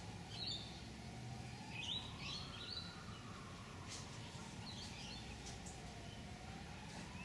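Distant siren wailing, slowly rising and falling, over a low steady rumble. Birds chirp briefly three times.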